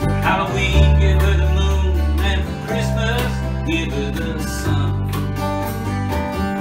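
Small acoustic band playing an instrumental passage: a dobro played with a slide, its notes gliding, over strummed acoustic guitar, a steady electric bass line and light percussion.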